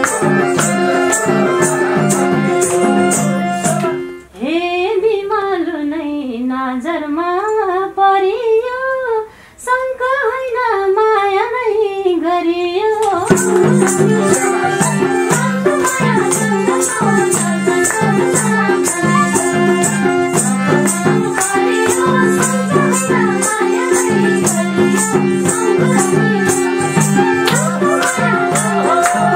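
Live Nepali dohori folk music: harmonium chords and a steady jingling rattle beat under group singing. About four seconds in the instruments drop out and a single voice sings an ornamented, wavering line alone for about nine seconds. Then the harmonium and percussion come back in under the singing.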